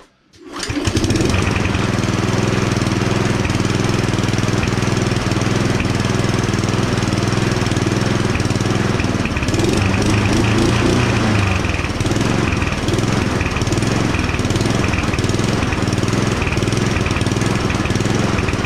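Mountfield self-propelled rotary lawnmower's petrol engine starting and then running steadily at speed, with a brief change in note about ten seconds in. It is running evenly with the throttle cable freed from the governor arm, where cable contact had made it rev wrongly.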